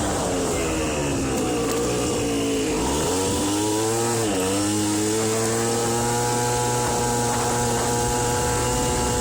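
Aprilia Ditech scooter's small two-stroke Morini engine running on a test ride, freshly fitted with new crankshaft bearings. The revs drop briefly and pick up again twice early on, then hold steady.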